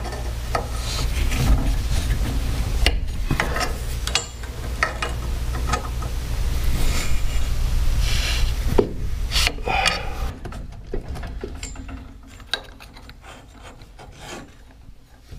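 Metal scraping and clicking as an open-end wrench loosens the set screws on a garage door torsion spring's cable drum and the drum is worked along the steel shaft. The sound drops off sharply about ten seconds in, leaving scattered clicks.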